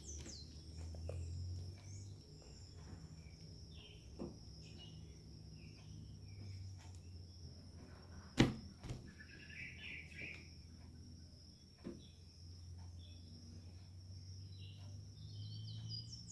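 Faint ambient sound: a steady low hum and a steady high whine, with scattered bird chirps. Soft clicks from slime being kneaded and stretched by hand, and one sharper snap about eight seconds in.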